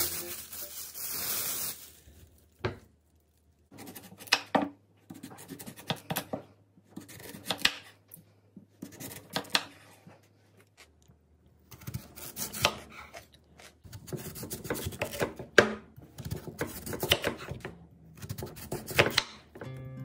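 Kitchen handling sounds as food and storage containers are worked at the counter. A rustling hiss runs over the first two seconds, then come irregular rubbing, scraping and light knocks.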